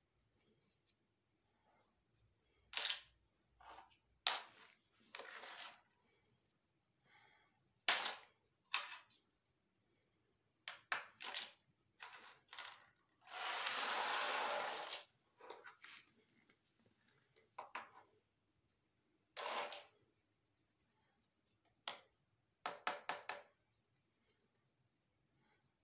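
Plastic toy pieces being unboxed and handled: scattered sharp clicks and taps, some in quick pairs, with one longer rustle about halfway through.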